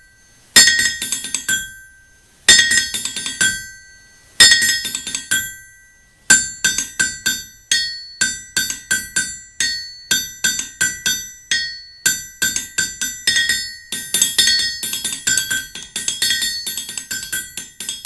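Music played by striking a Trenton anvil with a hammer, each blow ringing out with a bright metallic tone. Three single strikes about two seconds apart, then a faster, steady run of strikes.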